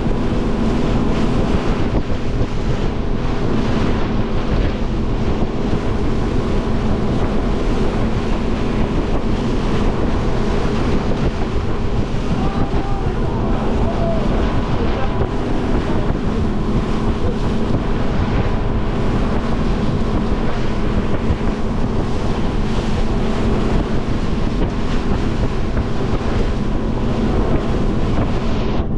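Motorboat running at speed: a steady engine drone under the rush of water and spray along the hull, with wind buffeting the microphone.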